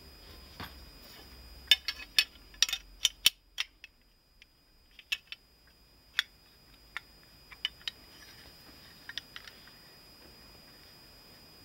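Small parts of a Hahn .45 pistol clicking and knocking against each other as they are handled and fitted by hand: a quick run of sharp clicks about two to three seconds in, then scattered single clicks.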